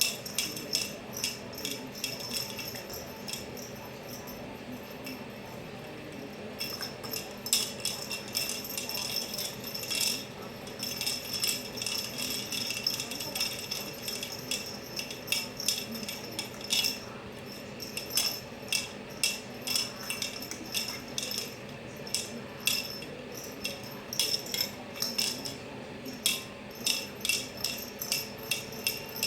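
Small metal jingle bell tinkling in quick, irregular shakes, each ring sounding the same few high notes, with a few seconds of quiet about four seconds in.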